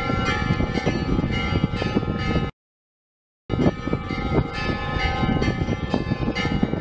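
Pop dance track with bell-like chiming tones over a steady beat. It cuts to dead silence for about a second midway, then picks up again.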